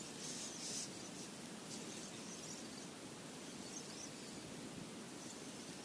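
Steady outdoor noise of wind and water around a small open boat, with a few faint brief rustles in the first second.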